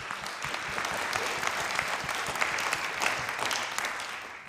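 A congregation applauding, with many hands clapping together; the applause dies away near the end.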